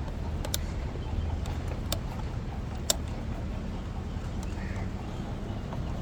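Three short sharp clicks from handling the plastic fuse box while checking its ignition fuse, over a steady low hum.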